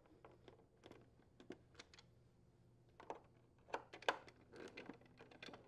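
Faint, scattered clicks and ticks of a Phillips screwdriver unthreading screws from a refrigerator's plastic ice chute housing, coming more often from about three seconds in.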